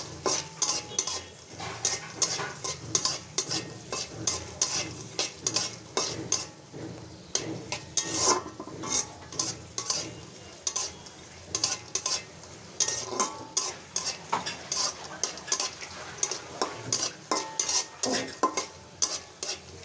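Chopped nuts frying in ghee in a kadai, sizzling, while a spatula stirs them with repeated quick scrapes and clicks against the pan.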